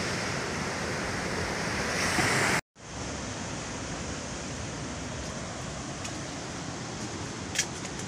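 Steady wash of sea surf breaking below, mixed with wind on the microphone. It cuts to silence for a moment about two and a half seconds in, then a similar steady hiss resumes with a sharp click near the end.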